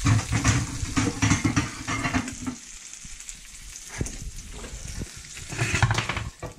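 Sliced abalone sizzling in a non-stick frying pan, with a spatula stirring and scraping through the pieces in two spells: over the first couple of seconds and again near the end.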